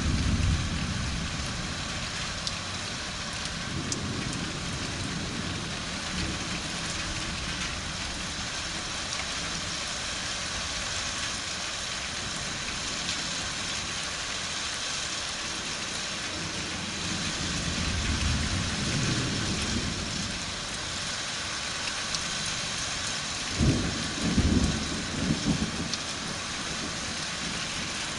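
Steady rain falling during a thunderstorm, with low rolls of thunder coming and going. Near the end a few louder, sharper thunder rumbles come in quick succession.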